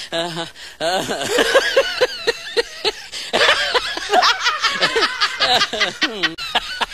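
Laughter in quick, repeated pulses, in two long bouts with a short break about three seconds in.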